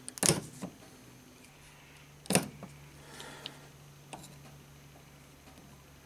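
Sharp metallic clicks and taps from a small hand-built model electric motor as its armature is turned and nudged by hand, the loudest about two seconds in. A faint steady low hum starts about a second and a half in.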